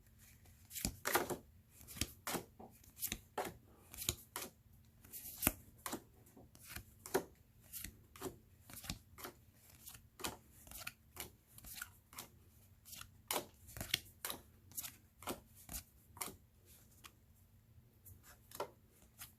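Board game cards being handled and flipped through one at a time, each making a short, sharp snap or slap, about two a second.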